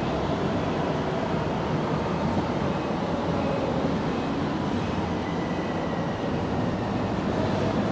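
Steady rumbling background noise with a hiss, even and unbroken, like distant traffic or machinery.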